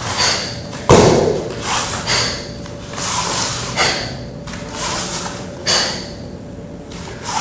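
A barefoot dancer moving on foam floor mats: one heavy thump about a second in, with short sharp sounds of movement recurring about once a second.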